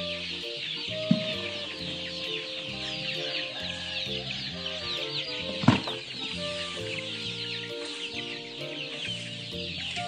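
A large flock of chicks peeping non-stop, many short high falling peeps overlapping, over background music. A knock sounds about a second in, and a louder one just before six seconds.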